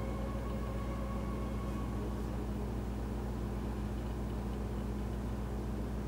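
A steady low mechanical hum, with a faint higher whine over it that fades out about two seconds in.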